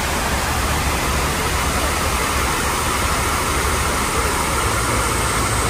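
Man-made waterfall of a memorial reflecting pool: water pouring down the pool walls in a steady, even rush.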